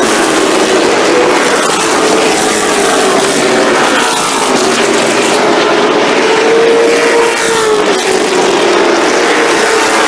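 Late model stock cars' V8 engines racing at full throttle around a short oval: a loud, steady engine drone whose pitch rises and falls as cars pass.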